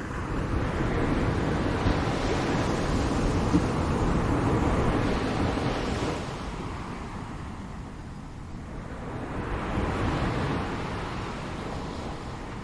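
Ocean waves breaking and washing on the shore: a long surge that builds about half a second in and eases off after about six seconds, then a second, smaller wave swelling around ten seconds in.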